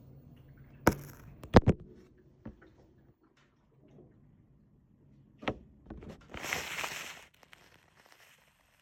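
Sharp clicks and knocks from handling an LG washing machine, the loudest pair about one and a half seconds in and another about five and a half seconds in, followed near the end by a short rush of hiss lasting about a second.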